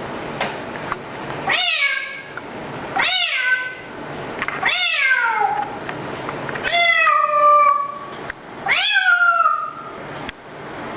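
Five meows, one after another, each rising then falling in pitch, spaced about a second and a half to two seconds apart.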